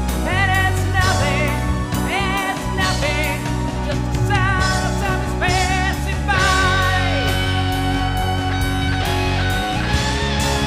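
Rock band playing, with a lead melody full of vibrato and downward slides over bass and drums. About two-thirds of the way through, the lead gives way to sustained held chords.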